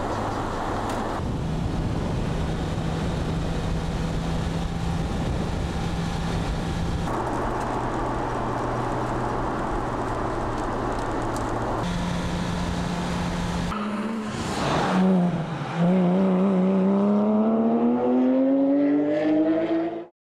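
Porsche 911 GT3 RS flat-six engine running at steady revs, the note changing abruptly several times. Near the end it climbs steadily in pitch as the car accelerates hard, then cuts off suddenly.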